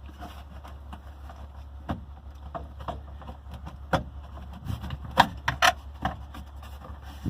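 Scattered clicks and knocks of hands working under an old Ford pickup's dashboard, pushing and tugging at the speedometer cable fitting behind the instrument cluster. The clicks are sparse at first and come thicker and louder from about four seconds in, over a steady low hum.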